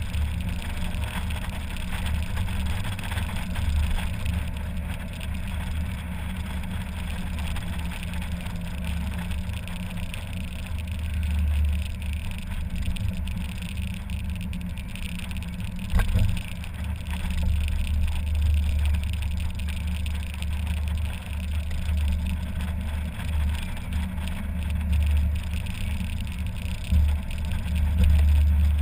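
Mazda MX-5 Miata driving with the top down: engine running under steady wind and road noise, with a low rumble that swells and fades. A single sharp knock about 16 seconds in.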